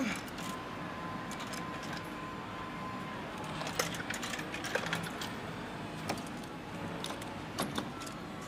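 Metal game tokens clinking and claw-machine controls clicking, a scatter of sharp clinks and clicks, with a steady high tone for about three seconds near the start.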